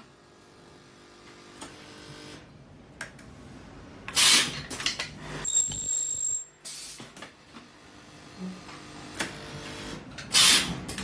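Carbon granule filling and ultrasonic welding machine running through its cycle: a low steady hum, then a loud hiss about four seconds in with clattering after it, a short high whine, and a second loud hiss near the end.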